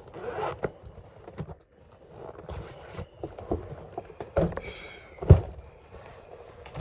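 Belongings being rummaged through and handled: scattered knocks, rustles and scrapes, with one sharp, loud knock about five seconds in.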